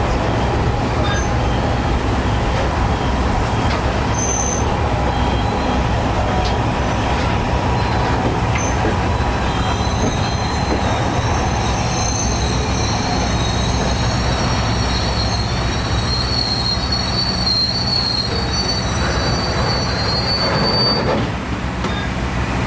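Passenger train running over the rails, heard from aboard: a steady rumble of wheels on track. About halfway through, a high wheel squeal sets in and carries on until shortly before the end.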